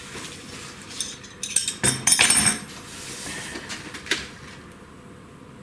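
Small metal hand tools, spanners and Allen keys, clinking and rattling as they are handled, with a cluster of clinks about two seconds in and a single click about four seconds in.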